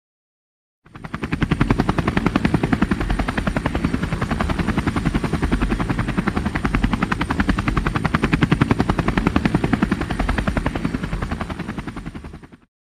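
Helicopter rotor beating fast and evenly, with a thin high whine above it; fades in about a second in and fades out near the end.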